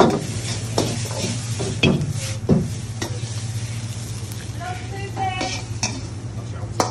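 A metal ladle knocking and scraping against a steel wok as fried rice is tossed and stir-fried, with the rice sizzling. There are several sharp ringing knocks in the first few seconds over a steady low hum.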